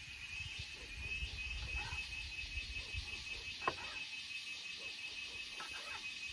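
Insects calling steadily in the garden, a high, fast-pulsing chirr that keeps up throughout. There is a low rumble in the first half and one sharp knock about halfway through.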